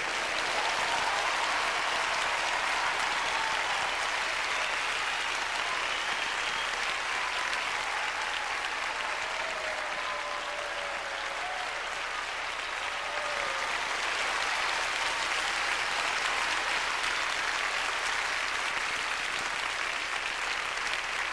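Audience applauding steadily, the clapping easing a little about halfway through and swelling again after.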